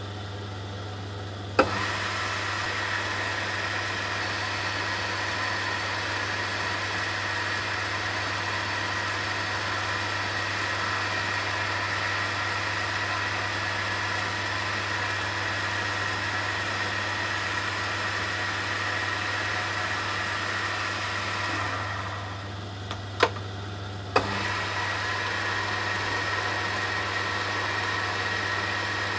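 Myford Super 7 lathe switched on with a click and running steadily with a motor whine and a low hum. About three quarters through it runs down; after two sharp clicks it starts again and runs on.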